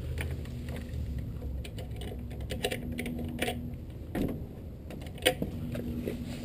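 A wooden gate's metal latch being worked by hand: a run of small clicks and rattles, with a duller knock about four seconds in and a sharper click a second later.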